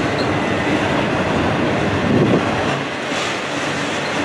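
Double-stack intermodal freight train's loaded container well cars rolling past, with a steady noise of steel wheels on the rails and a brief louder swell about two seconds in.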